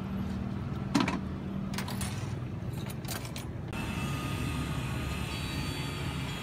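Street background noise with a steady low rumble of road traffic and a few sharp clicks, the loudest about a second in. A little before four seconds in the sound changes abruptly to a different, hissier street ambience.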